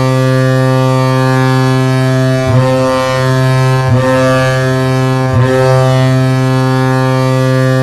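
Colorado Avalanche arena goal horn sounding a long, loud, low blast. It dips and re-sounds with a slight upward swoop about two and a half, four and five and a half seconds in.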